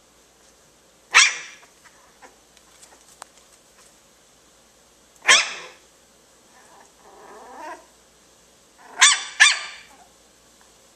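Dachshund puppy barking: a sharp bark about a second in, another about five seconds in, and two quick barks near the end, with a quieter growling sound in between.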